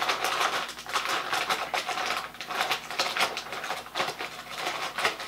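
Hands rummaging through bags of soft-plastic fishing baits: plastic packaging rustling and clattering in quick, irregular clicks.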